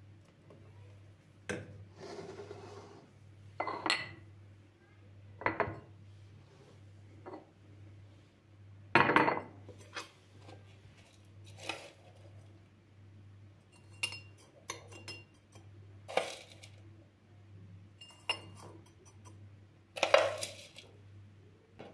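Dishes, cutlery and glassware being handled: a series of separate knocks and clinks, a few of them ringing briefly, over a low steady hum.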